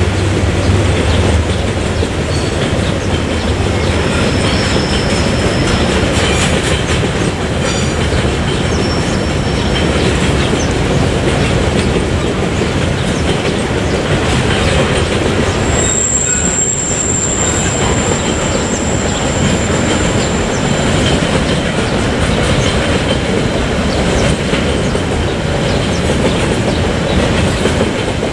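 Freight train wagons rolling past with a steady, loud running noise. About halfway through, a high-pitched wheel squeal sets in and holds for about five seconds, with shorter, fainter squeals earlier.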